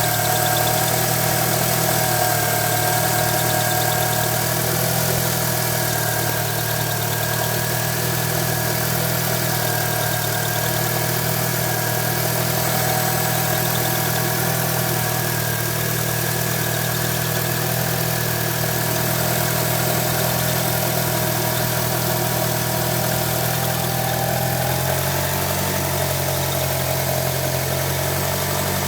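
1998 Mitsubishi Eclipse GSX's turbocharged four-cylinder engine idling steadily, with the chirping noise that the recording was made to capture. The low engine note shifts slightly near the end.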